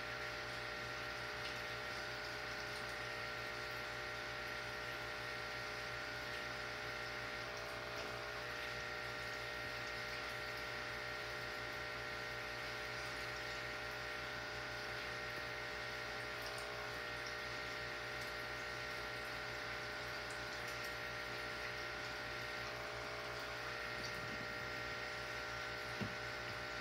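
Steady background hum and hiss with several faint steady tones, unchanging throughout, and a single short click about 25 seconds in.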